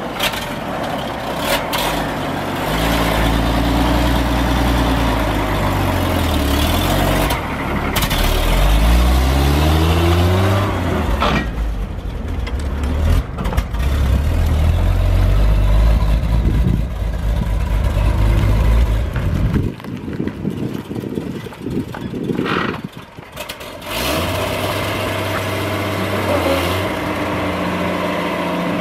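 1967 Chevrolet C-50 grain truck's gasoline engine running as the truck pulls away, its revs climbing and then dropping as it gets under way. The sound fades for a few seconds about two-thirds through as the truck moves off, then comes back louder near the end as it returns.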